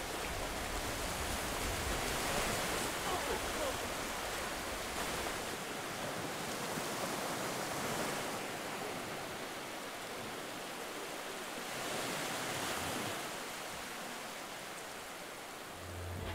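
Sea surf washing on a sandy shore: a steady hiss that swells and eases every few seconds as the waves break.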